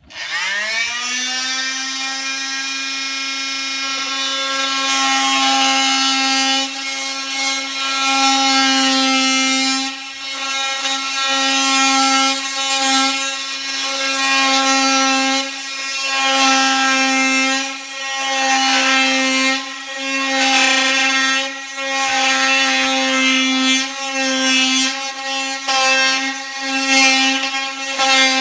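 Oscillating multi-tool saw switched on, its buzzing whine rising in pitch over the first second and then holding steady. From about five seconds in it cuts into wood, the sound swelling and dipping over and over as the blade bites and eases off.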